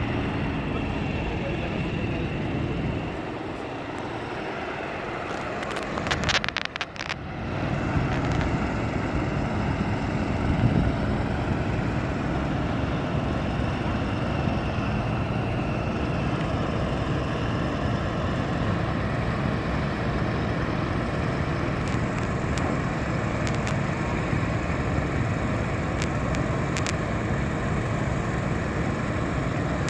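Engines running steadily with a low drone, with a few knocks and clicks about six to seven seconds in.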